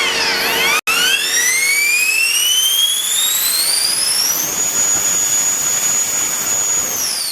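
120 mm all-metal electric ducted fan on a 14S battery spooling up: a rushing blast of air with a whine that climbs steadily in pitch for about four seconds, holds at full throttle, then starts to fall as it spools down near the end. The sound breaks off for an instant about a second in.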